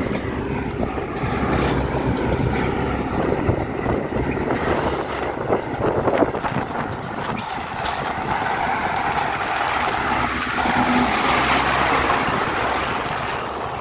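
Farm tractor engine running close alongside, over steady wind and road rush, with scattered knocks and rattles in the first half.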